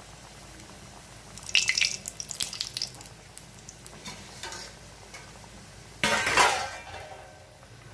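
A stuffed potato kachori deep-frying in oil in a steel kadai, a faint steady sizzle, with sharp clinks of a steel slotted spoon against the pan about a second and a half in and a louder clatter of steel kitchenware about six seconds in that dies away over a second.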